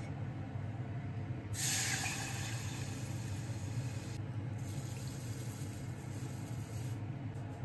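A small motor hums steadily, with a loud rushing hiss coming in about one and a half seconds in and easing a few seconds later.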